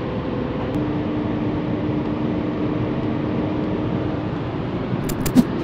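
Car driving, heard from inside the cabin: a steady hum of engine and road noise, with a few sharp clicks near the end.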